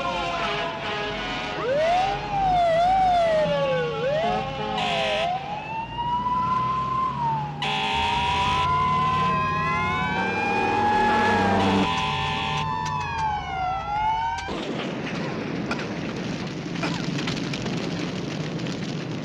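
Several fire-engine sirens wail and yelp together, overlapping, with two long horn blasts, as the apparatus responds to a call. About fourteen seconds in, the sirens cut off and a steady hissing, crackling noise of a fire takes over.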